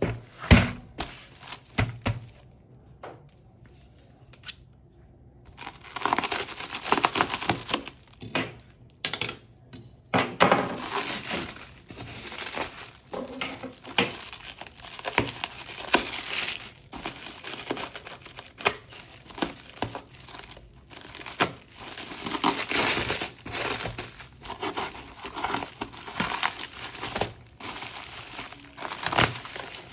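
Keyboard packaging being unwrapped by hand: plastic and paper crinkling and tearing, with a few knocks in the first two seconds and a lull before steady crinkling begins about six seconds in.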